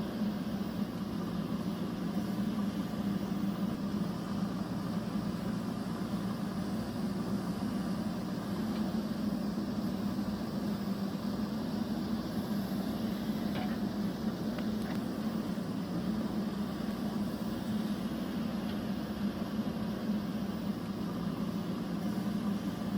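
Steady machine hum from an engine or motor running at an even speed, with no change in pitch or revs. A couple of faint ticks come about halfway through.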